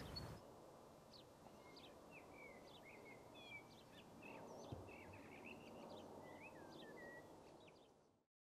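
Faint outdoor background with small birds chirping: short, scattered chirps and quick little whistles, fading out near the end.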